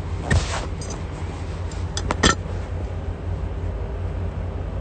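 Steady low rumble inside a car's cabin, with a short burst of noise just after the start and a few sharp clicks about two seconds in.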